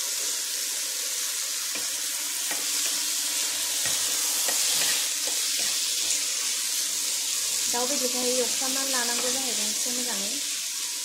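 Spice-coated chicken pieces sizzling in a hot non-stick frying pan, stirred with a spatula with a few light scrapes and clicks. About eight seconds in, a person's voice wavers in over the sizzling for a couple of seconds.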